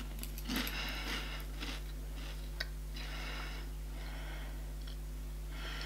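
A person chewing baked corn puffs with the mouth closed: a few soft, scattered chewing crunches over a steady low hum.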